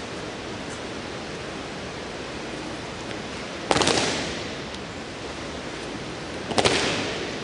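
Cadets' boots stamping together on a concrete floor, twice, about three seconds apart. Each stamp is a slightly ragged cluster of impacts that echoes through the large hall, over a steady hiss.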